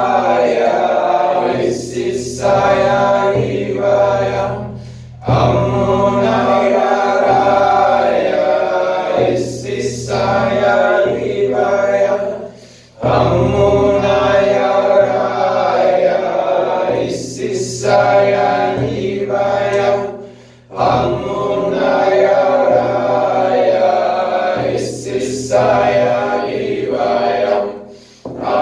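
Voices chanting together in long held phrases of about eight seconds each, broken by a short pause for breath, with a brief hissing consonant midway through each phrase.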